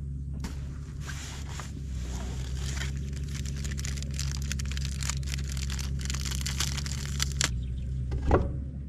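Crinkling, crackling rustle, like something being crumpled or handled, over a steady low hum, ending with a single thump.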